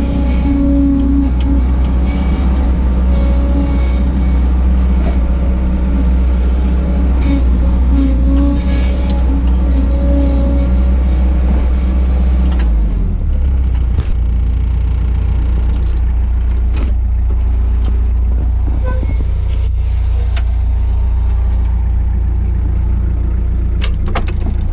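1988 Bobcat 743 skid steer running as it works, a steady low engine drone with a higher pitched whine over it that stops about halfway through. Scattered knocks and clanks follow.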